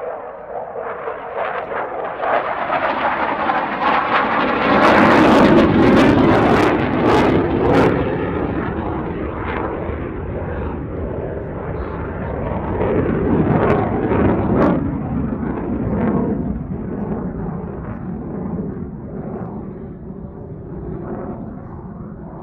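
Jet engine noise from a Saab JAS-39C Gripen's single Volvo RM12 turbofan during a display pass. It builds to its loudest about five seconds in, with a run of sharp crackles, swells again around fourteen seconds, then slowly fades.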